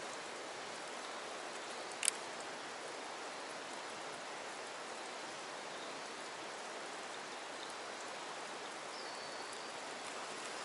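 Steady, even hiss of water, with a single sharp click about two seconds in.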